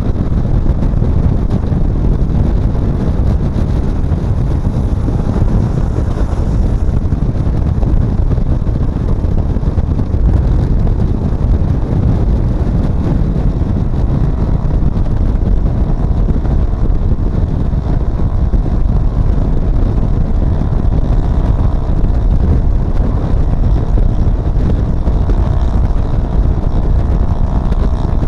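Steady wind rumble on the microphone of a camera on a moving vehicle, with engine and road noise underneath. A faint engine hum comes through from about halfway on.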